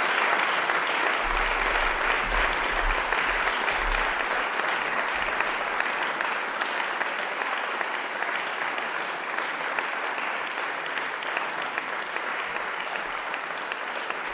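Audience applauding, a dense even clapping that slowly grows quieter.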